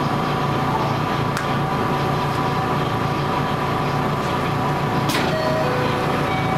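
Steady hum of a stationary electric multiple-unit train heard from the cab, with a few steady tones in it and a short hiss about five seconds in.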